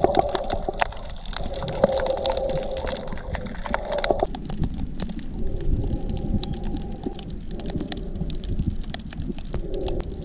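Underwater sound picked up by a camera held below the surface: muffled gurgling and water movement with a low rumble and many small scattered clicks. About four seconds in, the sound turns duller as the higher sounds drop away.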